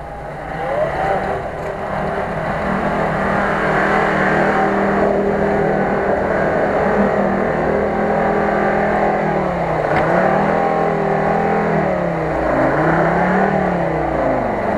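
UAZ-469 off-roader's engine pulling under heavy load as it ploughs through deep mud and water, the revs dipping and rising again about ten seconds in and twice more near the end, over the wash of tyres churning mud and water.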